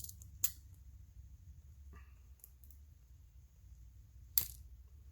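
A few sharp metallic clicks of pliers and a small coaxial plug end being handled, scattered through the quiet, with the loudest click about four seconds in.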